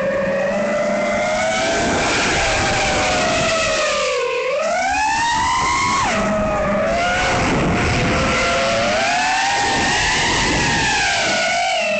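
Speedybee Mario 5 XH FPV quadcopter's motors and propellers whining, the pitch rising and falling with the throttle over a hiss of rushing air. The whine dips and then climbs sharply about four seconds in, and drops suddenly about six seconds in.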